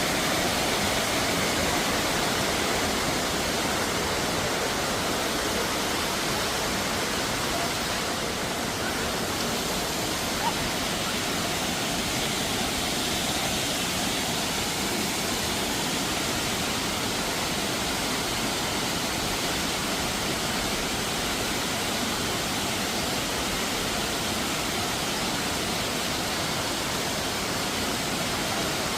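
Steady rush of flowing water, like a waterfall or fast stream, holding an even level throughout, with a faint click about ten seconds in.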